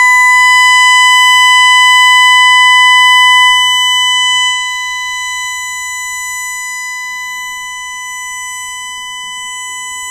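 Home security alarm sounding a burglary alarm after the front door zone was tripped during a system test: one steady, very loud high-pitched tone, a little quieter from about halfway.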